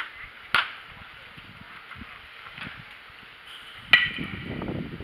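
A few sharp cracks of baseballs striking glove or bat, one about half a second in and a louder one about four seconds in with a brief ringing tail. A low rumble of wind on the microphone follows.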